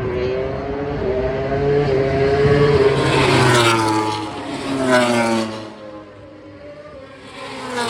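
Racing motorcycles passing at speed on the track, several in turn, their engine notes rising and then falling in pitch as each goes by.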